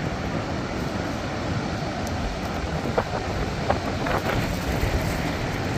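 Steady low roar aboard a tour boat close under Niagara Falls, the falling water, boat engine and wind blending into one noise, with a few faint ticks about three and four seconds in.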